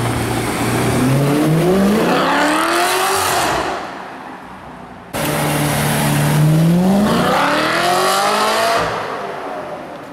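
Audi RS5's V8 with a loud aftermarket exhaust accelerating hard at full throttle twice, the engine note climbing steeply in pitch through the revs and fading as the car pulls away. The second pull starts abruptly about five seconds in.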